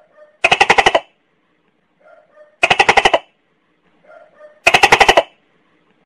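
Tokay gecko calling: three loud, harsh rattling calls about two seconds apart, each made of rapid pulses and lasting about half a second, with a faint softer sound just before each.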